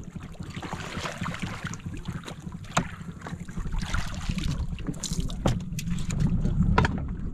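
A large fish being hauled by handline up the side of a small fishing boat and swung aboard, with water splashing off it and several sharp knocks against the hull and deck, over a steady low rumble.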